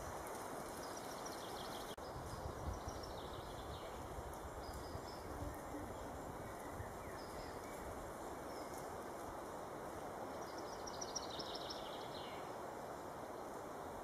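Steady woodland ambience, a low even hiss, with small birds calling faintly: a short run of high notes about a second in and a longer descending trill of high notes about eleven seconds in.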